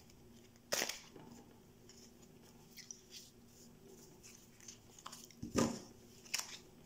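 A deck of Neapolitan playing cards being shuffled by hand: soft card rustles and faint ticks, with a few sharper snaps of the cards, about a second in and twice near the end.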